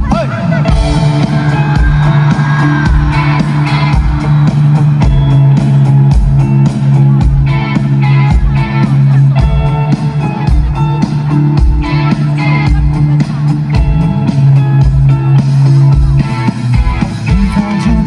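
Live band music with a steady kick-drum beat, bass and electric guitar.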